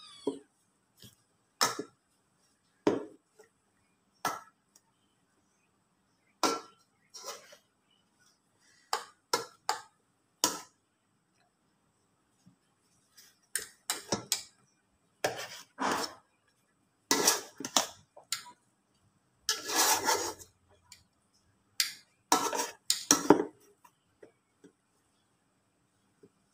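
Metal potato masher knocking and scraping against the inside of a pot while mashing cooked taro, in irregular strokes with short pauses between them. The strokes come faster in the second half, with one longer scraping stretch about 20 seconds in.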